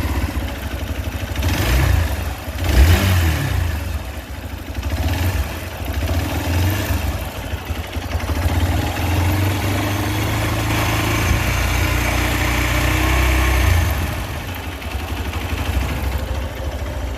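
Hero XPulse 200 single-cylinder 200cc motorcycle engine running just after a start: revved twice about two and three seconds in, then held at raised revs for several seconds before dropping back to idle near the end. It carries the unexpected engine noise at 1,100 km that the service centre calls tappet noise, which the owner doubts on so new a bike.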